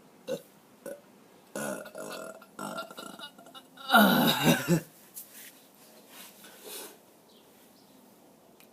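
A person burping on purpose: one loud burp just under a second long, with a wavering, falling pitch, about four seconds in, after a few shorter, quieter sounds.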